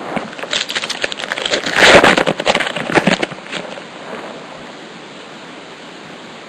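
A foil trading-card pack being torn open and its wrapper crinkled: a dense crackling rustle that starts about half a second in, is loudest around two seconds in, and dies away by about four seconds.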